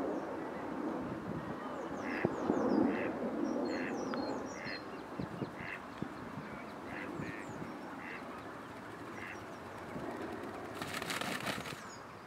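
Ducks quacking, a series of short calls repeated about once or twice a second, with small birds chirping high and faint over a steady outdoor rush. Near the end comes a brief burst of rushing noise.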